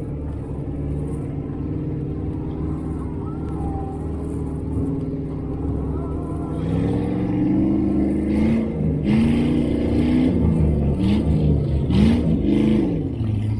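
Side-by-side UTV engine (CFMoto UForce 1000XL) running steadily on a gravel trail climb. About halfway through, the revs start rising and falling again and again, with short bursts of noise.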